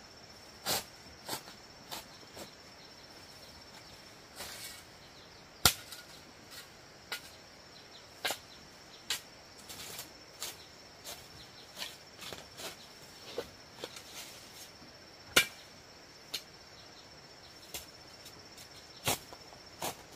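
A steady high-pitched insect drone, with irregular sharp clicks and knocks scattered through it. Two of the knocks, about 6 and 15 seconds in, are louder than the rest.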